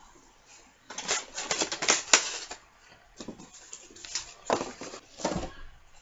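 Hard board game pieces clicking and knocking as they are handled and packed into their box: a quick clatter of clicks, then a few separate knocks.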